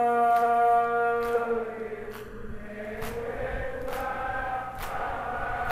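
Men's voices chanting a Urdu nauha: a long held note that fades about a second and a half in, then the group takes up the chant again. Sharp slaps of matam, hands striking chests, mark the beat about once a second.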